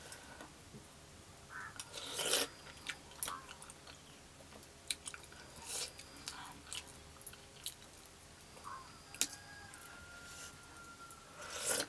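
Someone eating soup from a steel bowl with a steel spoon: sharp clinks of the spoon against the bowl, a few sips from the spoon and chewing.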